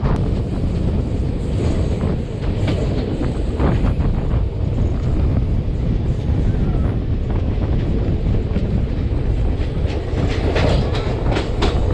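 Circar Express passenger train running at speed: a steady low rumble of the coaches with the wheels clattering over the rail joints, the clicks bunching up near the end.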